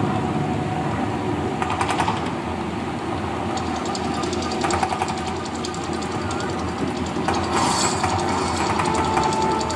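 Artificial volcano attraction erupting: a steady low rumble with louder hissing surges about two, five and eight seconds in as its flame jets fire.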